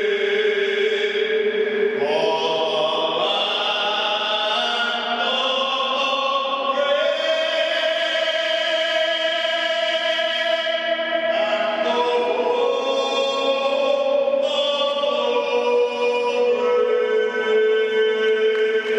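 Choral singing in long held notes, moving to a new chord every couple of seconds.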